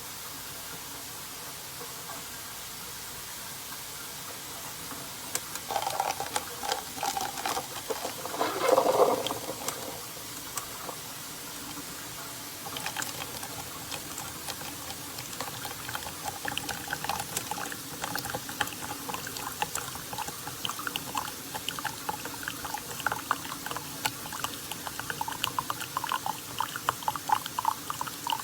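Keurig K-Slim single-serve pod coffee maker brewing: hot water and coffee pouring into a cup. Faint hiss at first, a louder gush around nine seconds in, then an irregular crackle and sputter of liquid from about thirteen seconds on.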